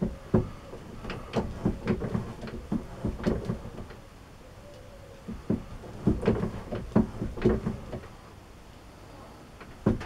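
Bursts of irregular clicks and knocks from work on a small spacer at a metal lathe, each burst lasting two to three seconds, with short quieter pauses between them.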